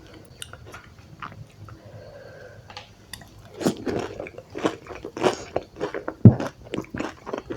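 Close-up eating of dahi puri: crisp puri shells crunching and wet yogurt-filled mouthfuls being chewed. It is faint at first, then loud dense crunching and chewing from about halfway through.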